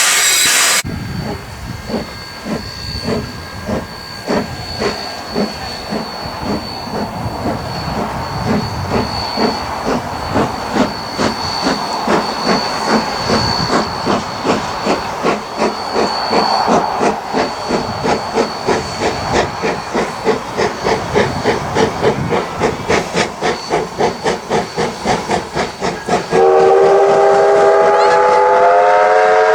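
Steam locomotive A428 pulling away, its exhaust beats quickening from about one a second to several a second, with a steady high hiss above them. Near the end its whistle sounds a loud, sustained blast of several notes at once.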